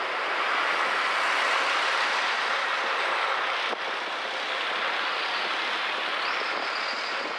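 Steady road and traffic noise from driving in busy city traffic, with a brief click about four seconds in.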